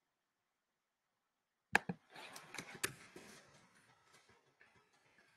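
Near silence, then two sharp clicks close to the microphone nearly two seconds in, followed by a couple of seconds of soft rustling and clicking that fades away.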